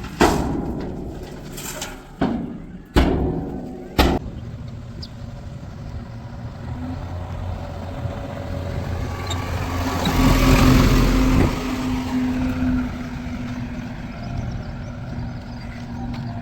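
Diesel engine of a JCB 3DX backhoe loader running steadily while it loads a dump truck, with four loud metallic knocks in the first four seconds. About ten seconds in, the engine surges louder with a rushing noise for about a second and a half, then settles back.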